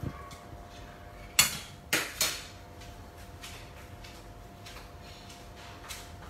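A plastic spatula stirring in a metal cooking pot, then knocking sharply against the pot three times about a second and a half to two and a half seconds in, with a few lighter clicks later. A steady hum runs underneath.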